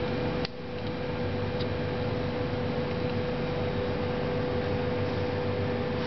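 Steady hum and hiss of running drinks-fridge refrigeration, with a constant mid-pitched tone. A sharp click about half a second in.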